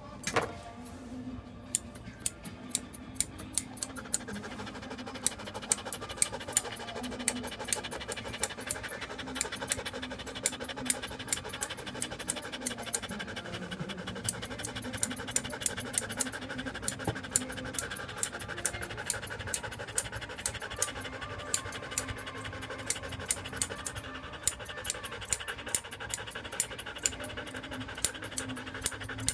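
Grooming scissors snipping through a standard poodle's curly coat in quick, irregular cuts, about two or three a second, with the dog panting.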